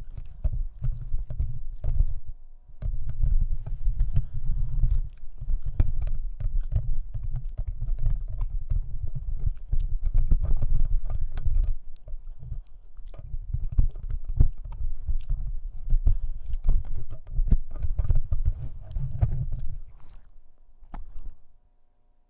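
Boston Terrier puppy chewing and gnawing on a black cable: a busy run of clicks and dull low bumps that stops near the end.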